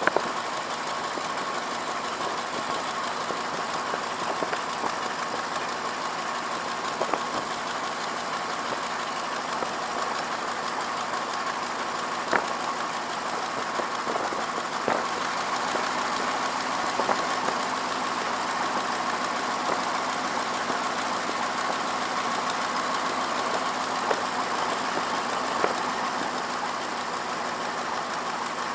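PT-13 Stearman's nine-cylinder Lycoming R-680 radial engine and propeller running steadily at low power, with a few faint clicks.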